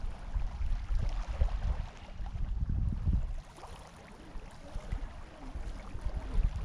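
Small waves lapping and washing over a pebble shore, with wind buffeting the microphone in gusts; the wind rumble is loudest and eases off for about a second past the middle.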